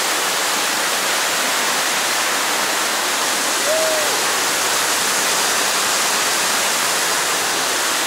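Waterfall close by: a loud, steady rush of falling and splashing water.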